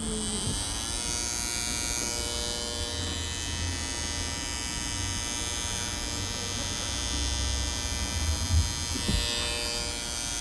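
Electric hair trimmer running: the motor spins up over the first second, then holds a steady buzz with its cutting blade driven.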